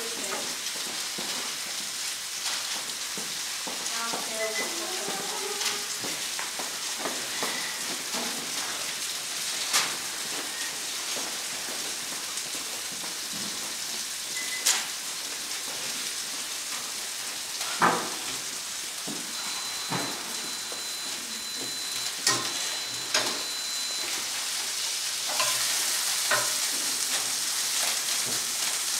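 Steak sizzling as it pan-sears: a steady frying hiss, with a few sharp clinks of a utensil against the pan. The sizzle grows louder near the end.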